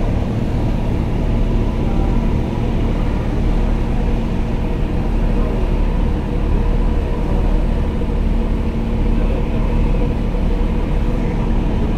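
Ship engines running: a steady low drone with a constant hum above it.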